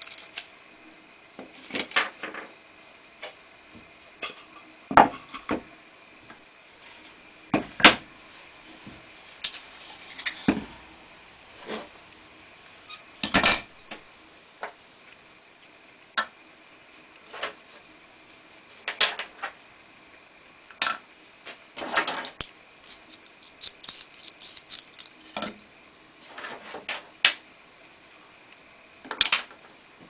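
Small metal hardware and wooden strips being handled and set down on a wooden workbench: irregular clicks, clinks and knocks, the loudest about halfway through, over a faint steady high whine.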